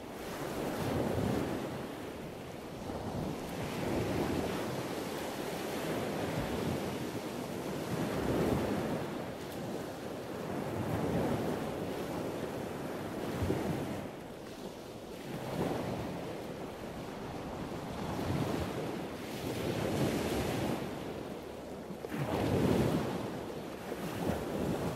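Rushing sound of sea surf and wind, swelling and fading every two to four seconds.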